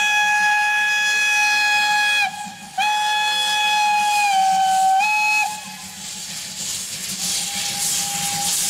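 Steam locomotive whistle blowing in two long blasts, split by a short break about two seconds in. The second blast sags briefly in pitch before cutting off about five and a half seconds in. Escaping steam hisses throughout, and a faint whistle tone comes back near the end.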